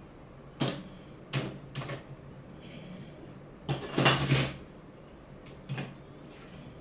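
Hard plastic Plarail track pieces and pier supports clacking against each other and the tabletop as they are set in place: three single knocks in the first two seconds, a louder rattling clatter about four seconds in, and one more knock near the end.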